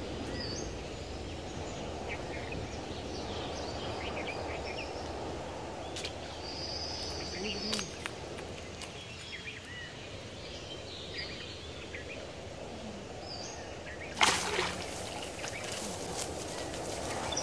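Steady outdoor background noise with scattered bird chirps. About fourteen seconds in, one sudden, short rushing swish and splash as a hooked fish is jerked out of the pond on a bamboo fishing pole.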